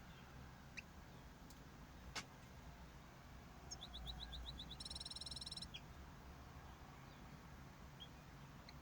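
Small cage birds calling: a quick run of short high chirps about four seconds in, then a buzzy, nasal call lasting about a second, with a few single chirps scattered around it over a low hum. A single sharp click sounds about two seconds in.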